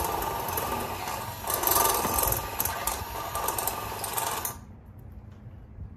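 A small power tool runs steadily for about five seconds, a little louder about one and a half seconds in, then cuts off near the end.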